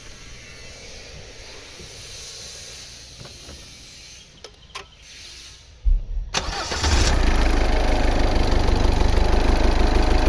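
A few faint clicks, then a 2007 Citroën C3's diesel engine cranked by the starter for about a second before it catches and settles into a steady idle.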